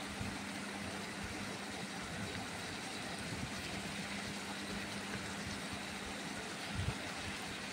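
Rohu fish and yogurt curry simmering in a kadai: a steady sizzle and bubble, over a steady low hum.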